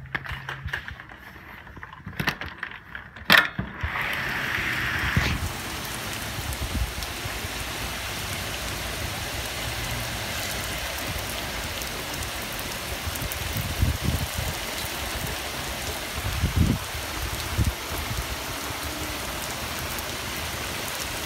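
A few sharp clicks and knocks, then heavy rain hissing steadily on a concrete patio from about four seconds in.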